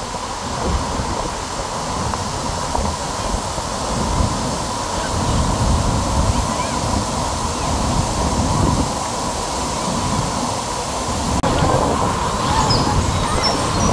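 Ayn Khor waterfall pouring into its plunge pool: a steady, heavy rush of falling water with a deep rumble.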